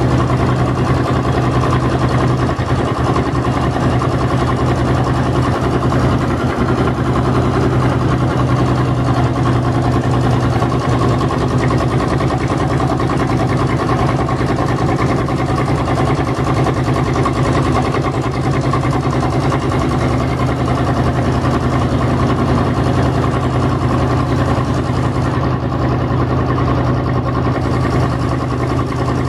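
Engine of a Northwest 80-D cable crane running steadily, with an even hum that holds the same pitch throughout, while the hoist holds a 2-yard drag bucket as a test weight for the hoist clutch and brake.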